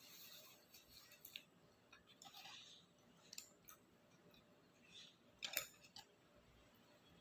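Faint eating sounds: takoyaki with octopus filling being chewed, heard as scattered short clicks and brief mouth noises, the sharpest about five and a half seconds in.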